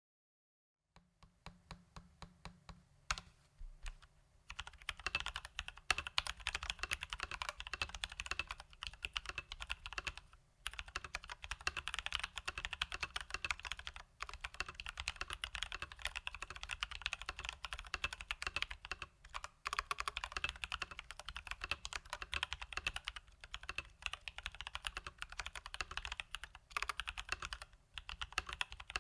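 Leopold FC980M mechanical keyboard with Durock T1 tactile switches lubed with Krytox 205g0, being typed on. A few separate keystrokes come first, then fast continuous typing with a few short pauses.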